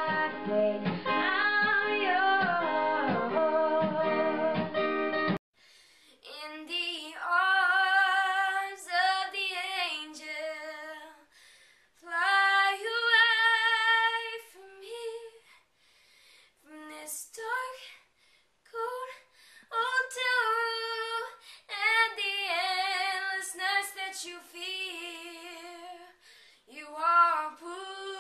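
A boy singing while strumming an acoustic guitar, cut off suddenly about five seconds in. He then sings unaccompanied in phrases with short pauses between them.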